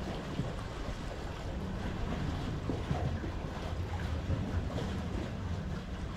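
Wind buffeting the microphone: a steady low rumble that rises and falls slightly.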